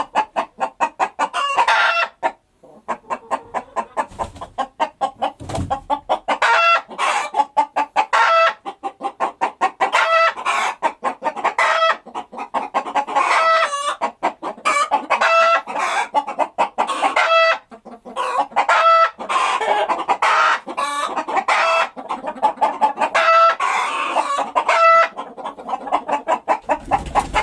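Chickens clucking: a dense run of quick short clucks, broken every second or two by a longer, drawn-out pitched call.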